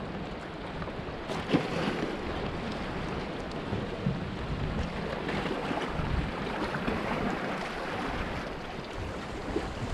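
Sea waves washing and splashing against shoreline rocks, a steady rushing wash, with wind rumbling on the microphone now and then.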